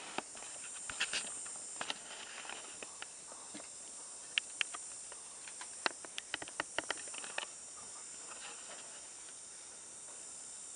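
Steady high chirring of insects, with a cluster of faint, sharp clicks through the middle.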